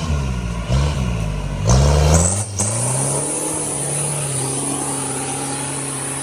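A vehicle engine revving up and down, with louder surges about one and two seconds in, then holding a steady pitch with a high, thin whine.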